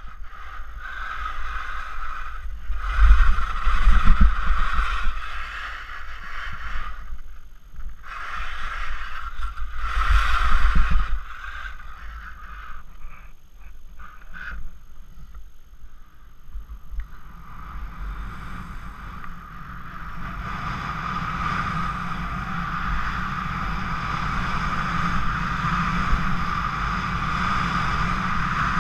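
Skis scraping over very hard snow on a steep descent, with wind rushing on the camera's microphone. Two loud surges of scraping come early on, then it goes patchy and quieter before settling into a steady rush that builds toward the end.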